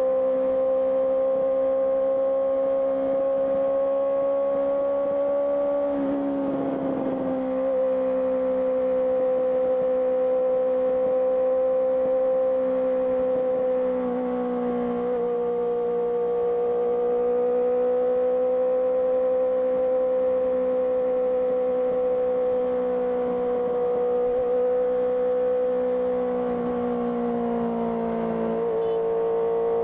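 Honda CBR650R's inline-four engine through an IXIL IXRACE aftermarket exhaust, running at a steady cruising speed. Its pitch drops slightly about halfway through and again near the end, and there is a short rush of noise about six seconds in.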